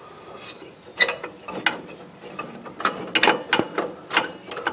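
Metal brake shoe assembly clinking and knocking against the tractor's hub and frame as it is worked into place by hand: irregular sharp clicks and clanks, one about a second in and a quick cluster in the second half.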